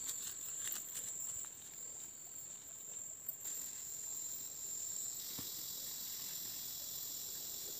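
Steady high-pitched drone of forest insects such as crickets or cicadas, with a denser layer joining about five seconds in. A few faint rustles and snaps of footsteps through undergrowth.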